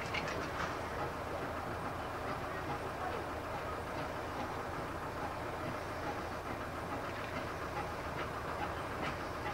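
Small 0-6-0T steam tank locomotive working slowly with a rake of goods vans, steam escaping at its cylinders, with a steady rush of noise and a few faint clicks and clanks.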